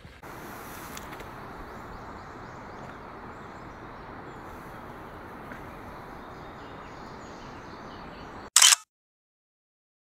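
Steady outdoor background rush with no clear calls. Near the end it breaks off in a brief loud knock and cuts to silence.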